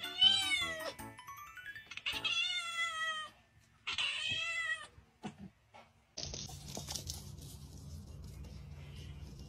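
A domestic cat meowing loudly three times, each call rising and then falling in pitch. After that comes a steady low room noise with a few faint soft knocks.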